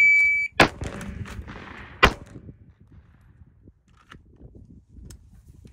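Electronic shot timer beep, a steady high tone lasting about half a second, then a carbine shot. About a second and a half later a single pistol shot follows, after the rifle-to-pistol transition, which the timer scores at 1.44 seconds.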